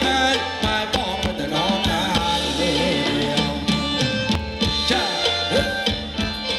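Live Thai ramwong band music: drums keep a steady beat under a bass line and a wavering melody.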